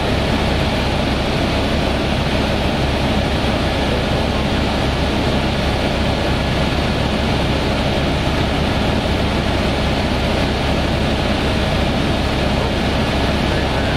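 Helicopter in steady cruise flight, heard from inside the cabin: a loud, even drone of engine and rotor noise with a low rumble beneath it.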